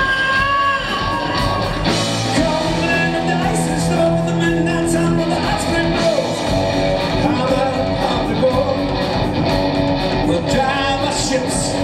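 Live rock band playing loudly: electric bass, drums and guitar, with a male singer's vocals over them.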